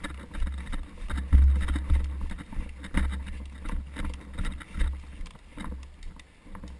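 Camera-mic rumble and buffeting with irregular knocks and rustles while the person wearing it moves on foot.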